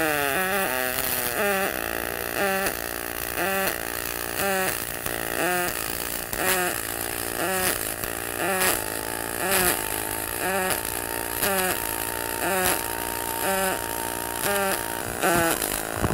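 Pulse MIG welding arc on 6061 aluminum pipe from an HTP Pro Pulse 300 welder, a steady buzz whose pitch shifts in an even beat about once a second, the rhythm of double-pulse welding.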